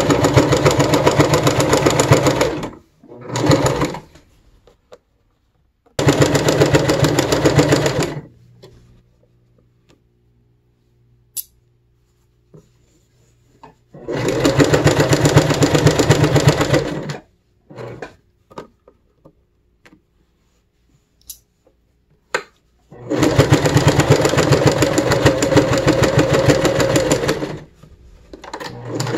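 Brother electric sewing machine stitching in runs of a few seconds, its needle mechanism chattering at a fast, even rate. It stops and starts five times, with quiet gaps holding a few clicks and fabric handling between runs.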